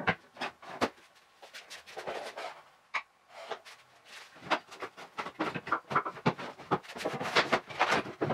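Sped-up clatter of irregular knocks, clicks and rustles as someone rummages through tools and boxes searching for dowels.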